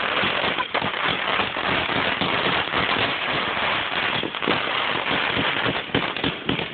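Fireworks finale barrage: a dense, unbroken run of many overlapping bursts and crackling reports.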